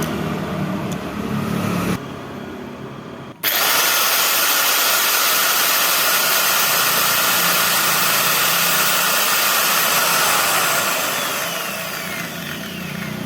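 Angle grinder, its gears freshly refitted and greased, cutting in suddenly a few seconds in and running loud and steady at full speed with a high whine. Near the end it falls in pitch and fades as it winds down.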